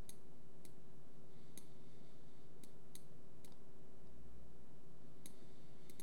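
Computer mouse clicking: about eight sharp, irregularly spaced clicks over a faint steady hum.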